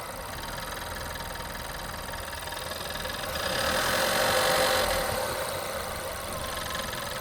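Volkswagen 1.4 TSI four-cylinder petrol engine running with a metallic ticking, a noise that has appeared since its timing chain was replaced. It swells louder for a second or two around the middle.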